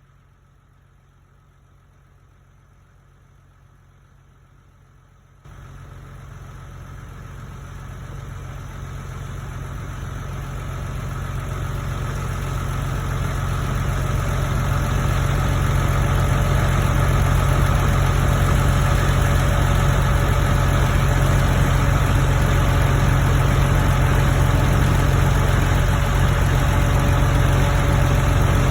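Combine harvester engine running: faint at first, then about five seconds in it gets louder and keeps building over the next ten seconds to a loud, steady drone.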